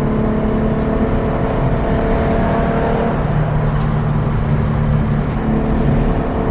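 Car engine droning steadily with road noise, heard from inside the moving car's cabin; its pitch shifts slightly about halfway through.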